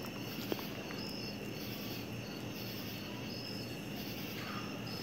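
Night insects, crickets, chirping steadily in a dense chorus, with a higher chirp repeating about once a second over a faint low hum.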